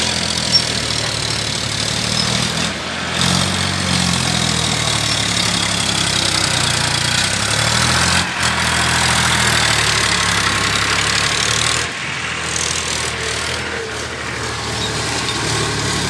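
Tractor diesel engine working under load, pulling a loaded trolley through mud, its pitch rising and falling with the throttle. The sound breaks off sharply twice, at about 8 and 12 seconds in.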